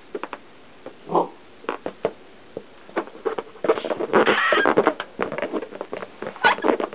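Arctic fox giving a brief call, then a longer harsh call with a wavering pitch partway through, with scattered light clicks and taps around it.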